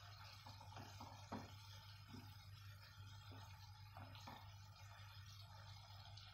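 Ground beef simmering quietly in its liquid in a nonstick frying pan, with a wooden spoon stirring it and knocking faintly against the pan several times. A steady low hum runs underneath.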